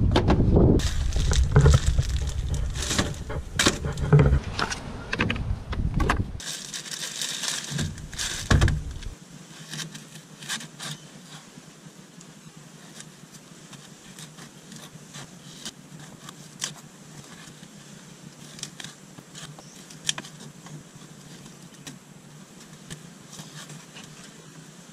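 A knife cutting mullet fillets into bait chunks on a plastic cutting board, heard as scattered light clicks and taps. The first several seconds are louder, with knocks and rustling as the board and gear are handled.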